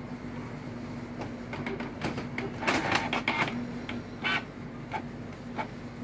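Canon PIXMA G3420 inkjet printer's mechanism running: a steady low hum, with a burst of whirring and clicking from about two seconds in, then short single clicks at fairly even spacing.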